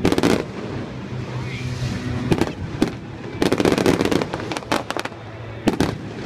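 Fireworks display: aerial shells bursting with sharp bangs, single reports near the start and at about two and a half seconds, then a rapid run of crackling cracks from about three and a half to five seconds in, and one more bang near the end.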